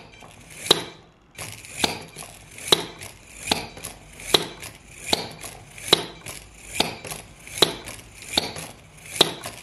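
Plastic squeaky toy hammer on a combat robot's gear-motor-driven arm slamming onto the table over and over, about once every 0.8 seconds. Each hit is a sharp clack with a short high squeak.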